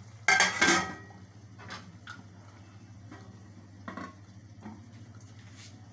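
A metal lid is set down on a metal cooking pot with a loud clatter about half a second in, followed by a few light metal clinks as a metal slotted skimmer is laid across the lid, closing the pulao pot to cook on dum. A low steady hum runs underneath.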